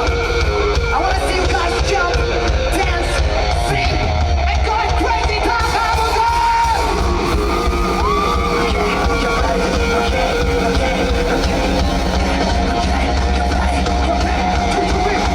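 Live rock band playing loudly with a lead vocalist singing, heard from the audience.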